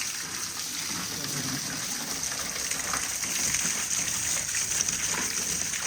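Running water, gushing steadily with a bright, even hiss.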